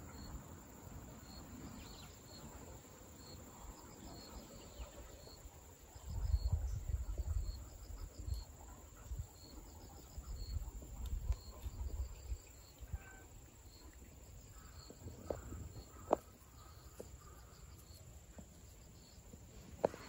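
Insects chirping in the grass: a steady high drone with short chirps repeating about once a second. A louder low rumble runs through the middle, with a few sharp knocks a little later.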